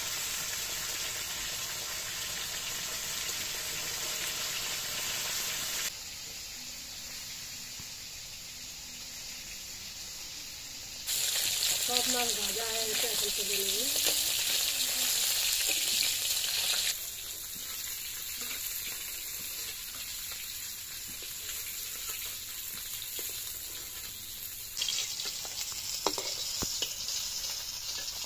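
Turmeric-coated katla fish pieces sizzling as they fry in hot oil in an iron kadai, a steady frying hiss that is loudest in the middle stretch. A metal spatula turns the pieces, with a few scraping clicks against the pan near the end.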